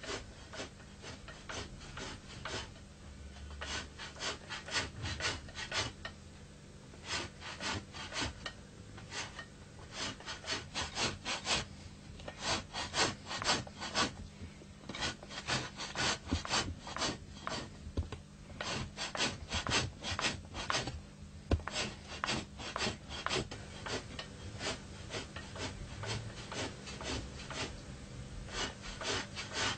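A hide being scraped by hand with a metal blade: quick rasping strokes in irregular runs with short pauses, over a steady low hum.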